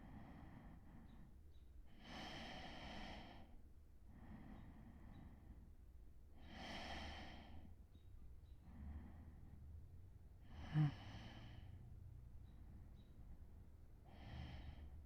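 A man's slow, soft sleep breathing, a fuller breath about every four seconds with quieter ones between. About eleven seconds in there is one brief, loud snort, like a snore.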